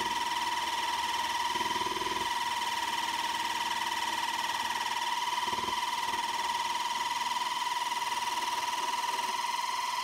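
Small scroll saw running with a steady high-pitched whine as its blade cuts through a golf ball.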